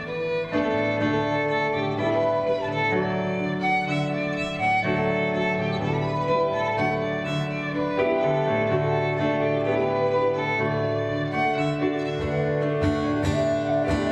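Fiddle and acoustic guitar playing together, the fiddle in long held notes. Strummed guitar chords come to the fore near the end.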